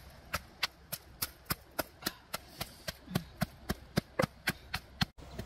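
Wooden pestle pounding chilies and garlic in a wooden mortar: a steady run of dull knocks, about three and a half strokes a second, stopping abruptly near the end.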